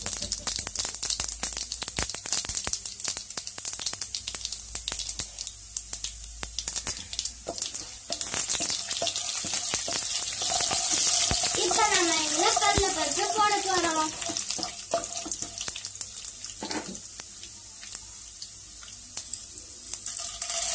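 Hot oil sizzling in a nonstick pan as urad dal and mustard seeds fry for a tempering, with many small crackles and pops throughout. A spatula stirs the pan around the middle, when the sizzle swells.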